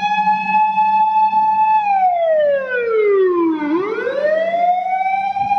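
A loud, steady siren-like tone holds one pitch, glides down over about two seconds, then rises back to the same pitch and holds it again.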